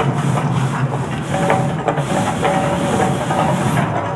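Volcano show effects hissing loudly in repeated surges, over a steady low rumble.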